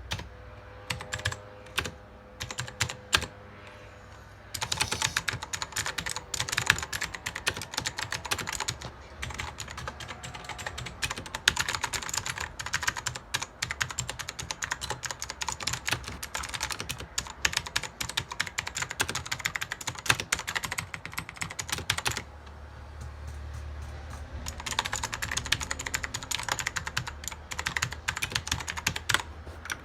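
Typing on a computer keyboard: a few scattered keystrokes at first, then a long run of rapid key clicks, a pause of about two seconds after some twenty seconds, and fast typing again near the end.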